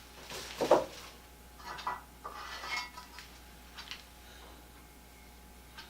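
Metal clinks and knocks of small hard objects being handled, with one sharp knock a little under a second in and a few lighter clatters after it.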